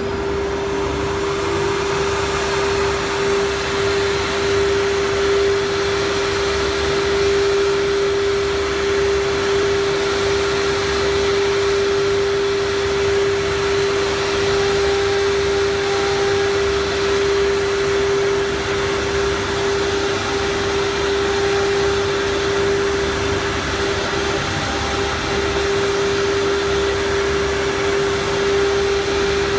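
SGMNC automatic loading/unloading CNC router running: a steady high whine that rises briefly at the start and then holds, over a loud, even rushing hiss like a vacuum or dust extractor.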